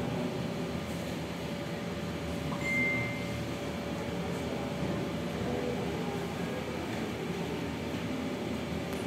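Steady room noise with a hum, as from a fan or air conditioner, and a brief high tone about three seconds in.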